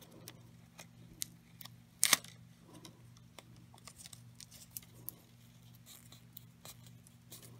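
Cut scrapbook paper strips being handled and positioned on a plastic cotton swab: faint rustles and light ticks, with one louder rustle about two seconds in, over a low steady electrical hum.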